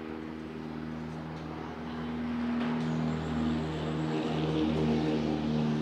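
A motor engine running with a steady drone, growing louder about halfway through.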